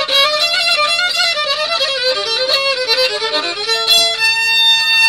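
Solo violin played with the bow: a quick, ornamented melody that settles on a long held note about four seconds in.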